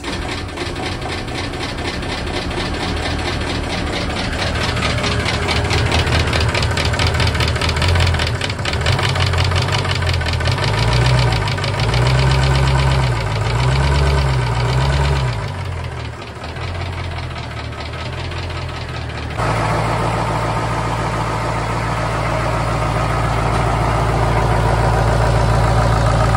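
Caterpillar 3208 V8 marine diesel running just after start-up, freshly rebuilt and with air bled from its fuel lines. Its speed rises and falls unevenly at first, then it settles into a steadier idle for the last several seconds.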